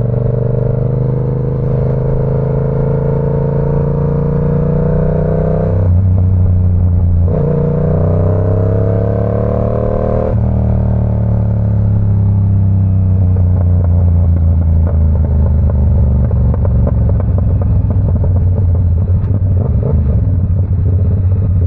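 Yamaha R7's 689 cc parallel-twin engine pulling up through the gears: the revs rise, drop with an upshift about six seconds in, climb again, drop with another upshift about ten seconds in, then hold nearly steady at cruise.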